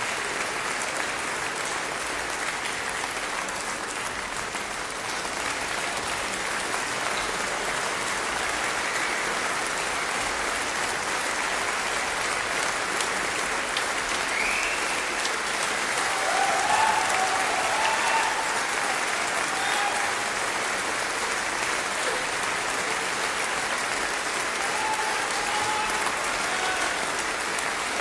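Theatre audience applauding steadily during an opera curtain call. A few voices call out briefly over the clapping in the middle and again near the end.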